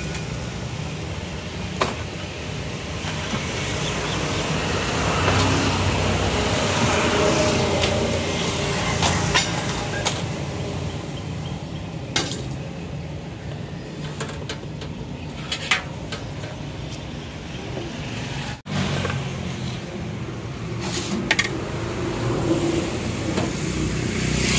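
Steel plates and bowls clinking against one another and against large aluminium pots: several short, sharp clinks spread through, over a steady background rumble.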